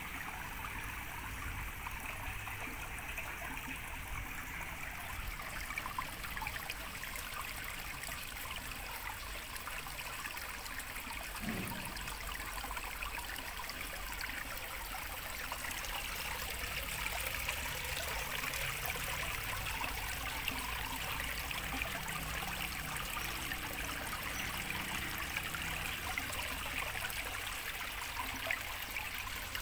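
Water trickling and splashing steadily from PVC pipe outlets into a small garden pond, a little louder in the second half.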